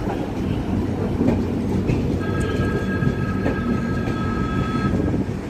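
Mandovi Express passenger coaches rolling slowly past along the platform with a steady low rumble as the train comes in. About two seconds in, a steady two-note squeal from the train's running gear starts; it lasts nearly three seconds, then stops.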